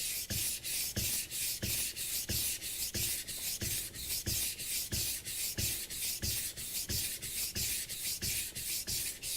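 Global kitchen knife blade stroked back and forth on a wet whetstone, an even scraping rub at about three strokes a second that stops at the very end. He is sharpening the inside of the blade after raising a burr on the outside edge.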